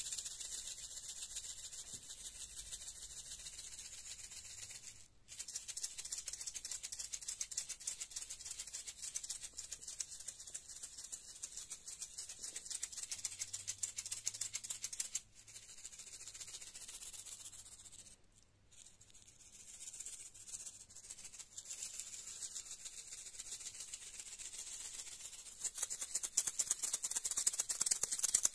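Maracas shaken in a fast, fine, continuous rattle, with brief pauses about five and fifteen seconds in and a slightly longer gap a little after the middle; the shaking grows louder near the end.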